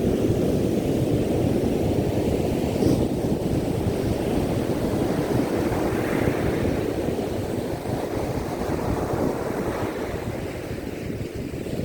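Ocean surf breaking and washing up on a sand beach: a steady, deep rush of water noise that eases off gradually over the last few seconds.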